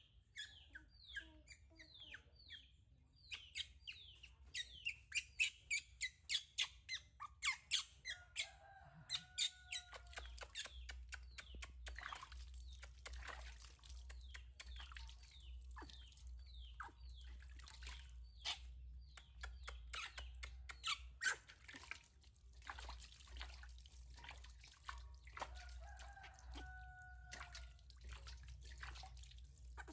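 A baby monkey crying in a run of short, high, falling-pitch squeals about twice a second while it is bathed, then water splashing and dripping as it is scooped over the monkey into a steel basin, with a few more cries mixed in.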